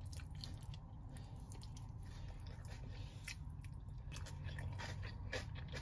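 A person chewing fried fish: a scattered run of small clicks and soft crunches from the mouth.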